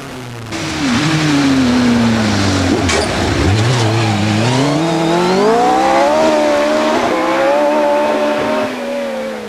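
Single-seater hillclimb racing car's engine: it gets suddenly louder about half a second in, and the revs fall as the car slows for a bend. They then climb again under acceleration, hold high, and drop away near the end.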